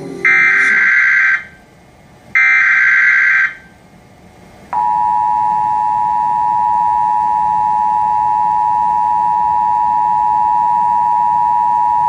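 Emergency Alert System audio from a DASDEC II: two loud, roughly one-second SAME header data bursts, the end of the three-burst header, then after a short gap the steady two-tone attention signal, which starts a little under five seconds in and holds. This sequence announces an incoming alert, here a civil emergency message.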